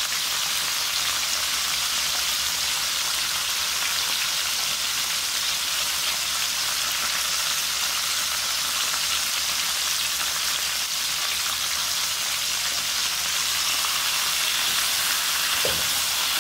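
Seasoned chicken pieces frying in shallow oil in a nonstick frying pan, a steady even sizzle as they brown for brown stew chicken.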